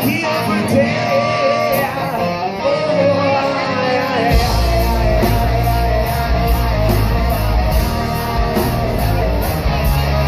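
Live hard rock band with a male lead singer belting a wavering melody over the band. About four seconds in, the band comes in heavier, with a deep bass and a steady cymbal beat.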